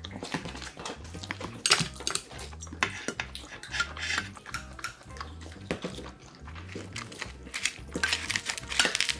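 Chopsticks clinking and scraping against a stainless steel rice bowl and metal dishes while eating, in irregular sharp clicks that are loudest about a second and a half in and near the end.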